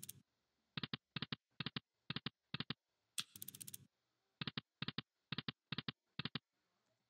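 Online slot machine sound effects, heard twice. A short spin sound is followed by five sharp double clicks about half a second apart, one for each of the five reels as it stops.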